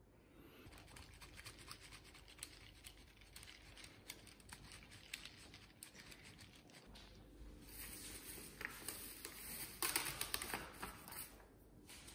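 Faint scratching and small clicks of hand food prep: a flat hand grater scraping hard cheese over a pizza and basil leaves being handled, the scraping growing louder and denser in the second half.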